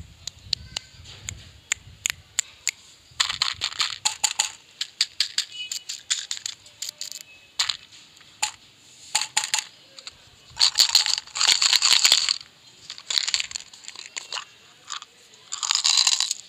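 Hands handling plastic-wrapped sweets and plastic containers: sharp taps and clicks, and bursts of plastic wrappers crinkling and crackling. Near the end a plastic jar of round white mints is opened and handled.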